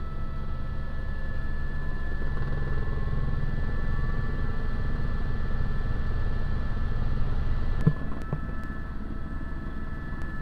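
Helicopter cabin noise: the engine and rotor make a steady low rumble with a steady high whine above it. A few sharp knocks come about eight seconds in, after which the noise is slightly quieter.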